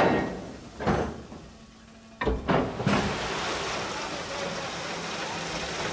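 Coal dropping from the bottom doors of HAA hopper wagons into the discharge pit under the track. Two sudden rushes in the first second, a heavy thud a little after two seconds, then a steady rushing pour.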